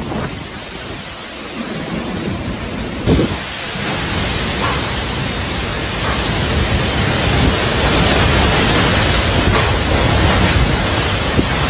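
Cyclone storm noise: heavy wind and rain battering the microphone in a dense, steady rush that slowly grows louder, with a sharp knock about three seconds in.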